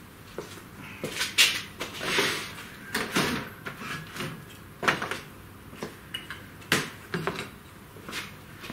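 Hands rummaging among small parts on a workbench while searching for one: scattered knocks, clicks and rustles, several sharper ones a second or two apart.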